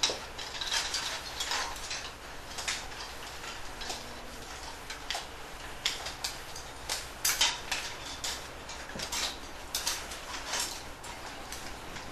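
Spoons and chopsticks clicking and scraping against the black baru bowls of a silent Buddhist formal monastic meal, in irregular light taps from many diners.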